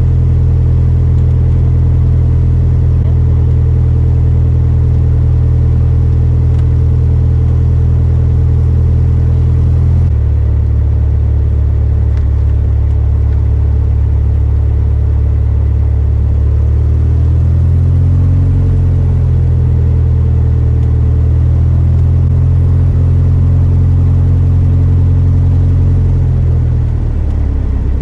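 Single-engine piston airplane's engine and propeller running at taxi power, heard from inside the cockpit. The engine note steps down about a third of the way in, rises and falls briefly around two-thirds through, and drops again near the end.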